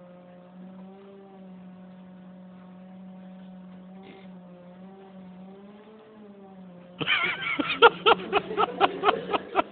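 Loudspeaker driving a Rubens' flame tube with a steady low tone and a few overtones. About seven seconds in, a much louder burst of rapid, crackling pulses breaks in, about four or five a second.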